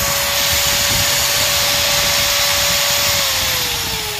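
Handheld electric cutter's brushed motor running at full speed on a test run after its carbon brushes, wiring and bearing were replaced, a steady high whine, then winding down with a falling pitch about three seconds in.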